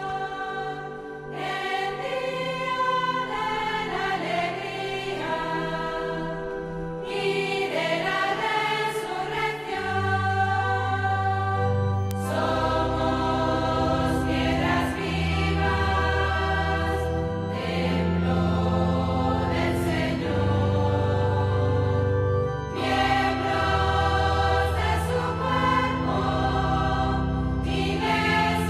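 Choir singing a hymn, the entrance hymn that opens the Mass, in long held notes that move step by step. A deeper sustained accompaniment comes in about ten seconds in.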